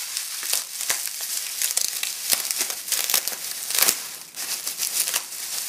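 Crumpled newspaper packing rustling and crinkling in a cardboard box as a hand digs through it, in an irregular run of crackles with a few louder crunches.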